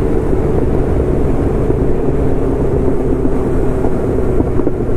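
Motorcycle engine running at a steady highway speed, its even note mixed with heavy wind rush on the microphone.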